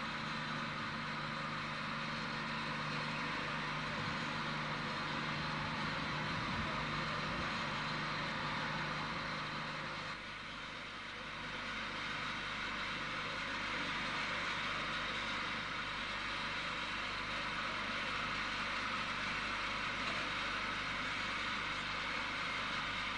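Steady machinery running noise with a hiss and a low hum, which dips briefly about ten seconds in.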